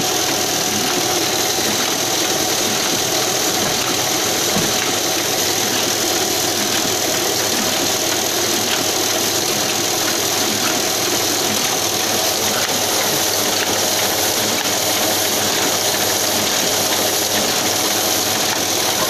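Ryobi small offset printing press running at a steady pace, its rollers and sheet feeder making a continuous, even mechanical noise with no pauses.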